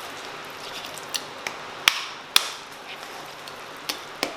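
A series of sharp knocks on a hard surface, starting about a second in and coming irregularly, one or two a second.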